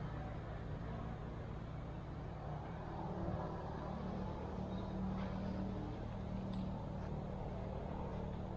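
Steady low hum of a motor vehicle engine running, with a few faint ticks in the second half.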